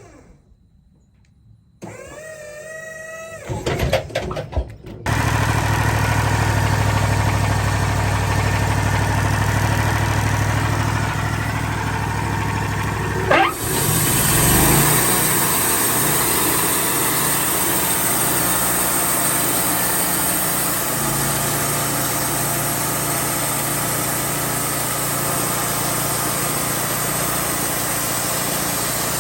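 Wood-Mizer LT40 sawmill's engine starting up and then running steadily and loud from about five seconds in. About halfway through a sharp clunk is heard, after which the running sound shifts, with more high hiss.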